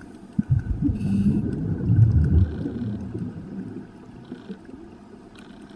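Underwater sound through a camera housing: a scuba diver's exhaled bubbles from the regulator, a low, uneven bubbling that is loudest in the first half and then fades. A few short, faint hisses come in later.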